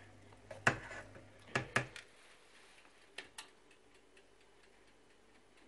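A few sharp kitchen clicks and clinks: one about a second in, a pair close together soon after, then two lighter ticks around the middle, from a ladle against the metal flan mould and the oven's control dial being turned.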